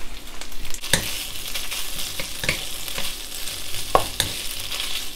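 Beef slices sizzling in hot oil with garlic and fermented black beans in a nonstick frying pan, stir-fried with two wooden spatulas that knock against the pan a few times.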